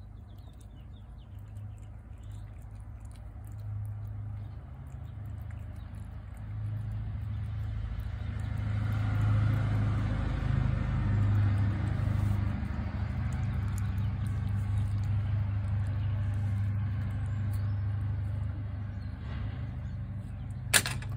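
A motor vehicle's engine running, a low steady hum that grows louder over the first ten seconds and then holds. There is one sharp click near the end.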